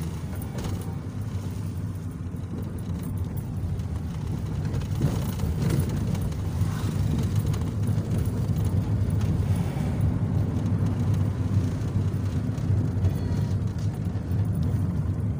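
Car driving on an unpaved dirt road, heard from inside the cabin: a steady low rumble of engine and tyres that grows a little louder about five seconds in.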